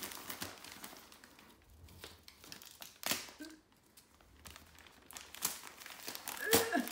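Gift wrapping paper crinkling and tearing as a present is unwrapped by hand, in irregular rustles with a few sharper rips, the loudest about halfway through and near the end.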